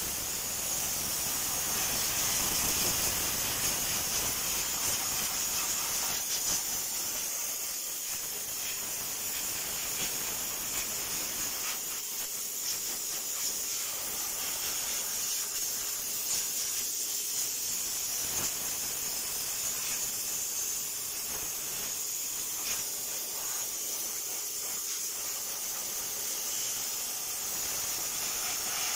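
Spray gun hissing steadily as it sprays gasoline over the engine's wiring and the newly fitted oil pressure sensor's connector to wash off oil.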